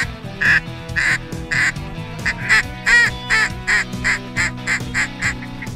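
Duck quacking in a rapid series of short calls, about three to four a second, loudest about three seconds in, over background music with steady low sustained tones.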